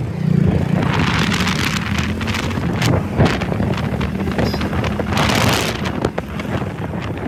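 A vehicle engine running steadily on the move, with wind buffeting the microphone in gusts.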